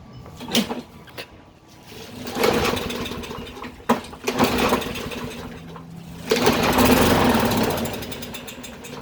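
Toro lawn mower's small engine being pull-started three times, each pull catching for a second or two with a rising and falling surge of engine sound before dying out. The owner suspects the sign of a carburetor gummed up by old fuel.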